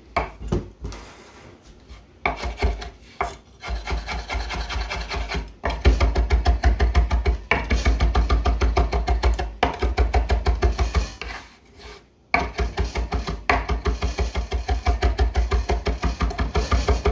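Chef's knife rapidly chopping parsley on a cutting board: a fast run of knocks in several runs broken by short pauses.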